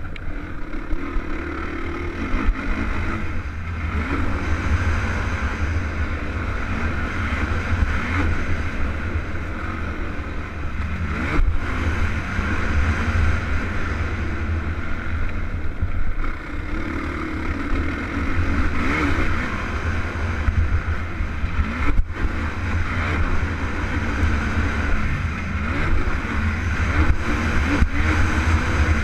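Stock Honda TRX450R quad's single-cylinder four-stroke engine running hard over a dirt motocross track, its pitch rising and falling as the throttle works, with two brief sharp breaks in the sound.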